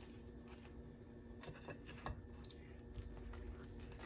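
Faint crunching and scraping of a knife cutting through toasted sandwich bread on a plate, in a few short strokes around the middle. A low steady hum runs underneath.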